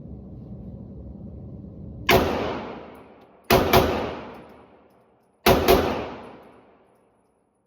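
Walther Q4 SF 9mm pistol fired five times: a single shot, then two quick double-taps, each shot followed by a long echoing decay. A steady low rumble is heard before the first shot.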